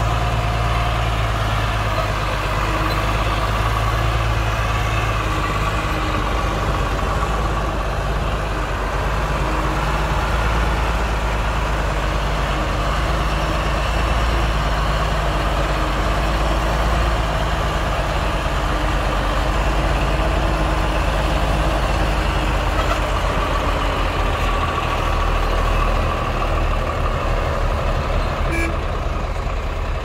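Heavy construction machine's diesel engine running steadily under work.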